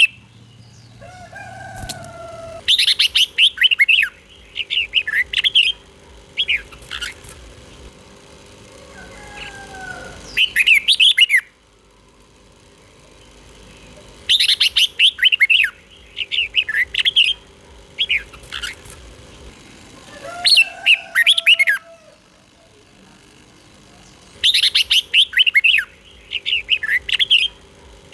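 Red-whiskered bulbul singing: short bursts of quick warbled notes, repeated in groups every few seconds, with a few lower sliding whistles between phrases. A faint steady hum runs underneath.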